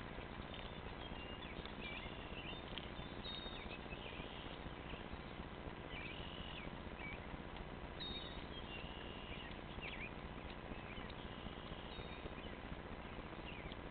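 Birds chirping in short, high calls, scattered throughout, over a steady outdoor hiss.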